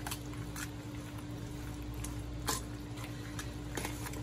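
A spoon mixing pasta salad in a bowl, with a few light clicks of the utensil against the bowl over a steady background hum.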